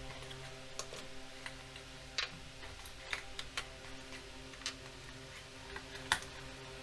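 Irregular clicks and taps of small plastic action-camera mounts and accessories being picked out of a cardboard box and set down on a wooden table, the sharpest click about six seconds in.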